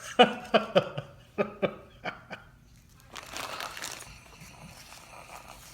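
Biodegradable packing peanuts being handled and stirred in a box: a quick run of sharp clicks and squeaks, then a softer rustle.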